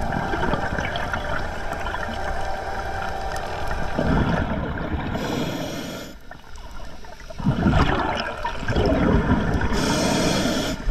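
Scuba regulator breathing underwater: a hissing inhale through the regulator and a gurgling rush of exhaled bubbles. The bubbles die down briefly about six seconds in, then come back loudly.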